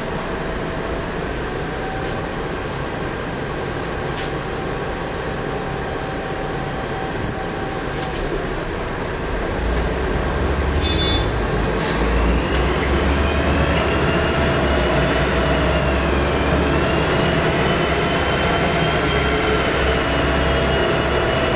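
Volvo B10M bus's turbocharged horizontal straight-six diesel engine running. About ten seconds in, the engine note rises as it pulls harder, and a high turbo whistle climbs, dips briefly and climbs again.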